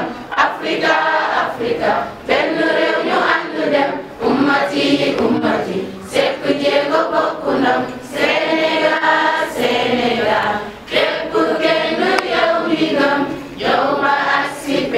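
A crowd singing an anthem together, mostly female voices, in long phrases with short breaks between them.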